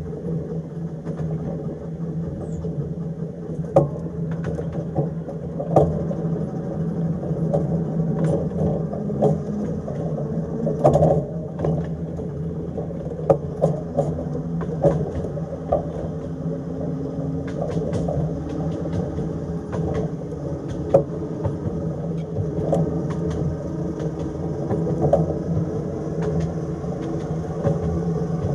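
Narrow-gauge electric tram running along its track: a steady hum from the traction motors and gearing, with irregular clicks and knocks from the wheels on the rails.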